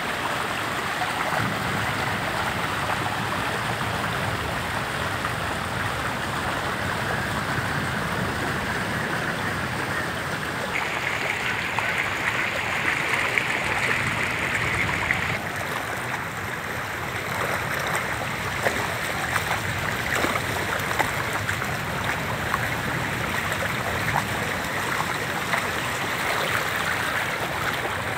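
Seawater from a sea surge rushing and swirling along a flooded lane: a steady rushing noise, brighter and a little louder for a few seconds about halfway through.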